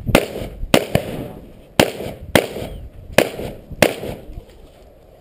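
Six rifle shots in three quick pairs, the two shots of each pair a little over half a second apart, each followed by a short echo.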